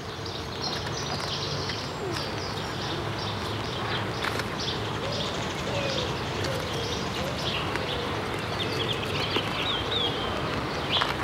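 Garden birdsong: small birds chirping and twittering throughout, with a few low cooing calls of a pigeon and occasional sharp clicks.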